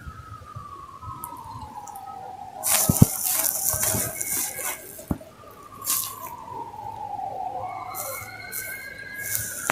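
Emergency-vehicle siren wailing, its pitch gliding slowly down and back up over several seconds. A sharp knock and bursts of crackling come about three seconds in, with more crackles a few seconds later.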